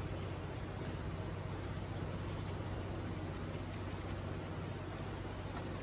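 Small nylon brush scrubbing a motorcycle throttle housing wet with Simple Green: faint, steady scratchy brushing over a low constant hum.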